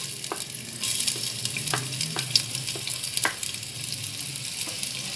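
Chopped onions sizzling in hot oil in an earthenware clay handi. The sizzle swells about a second in as the onions land in the oil, with a few sharp crackles and pops.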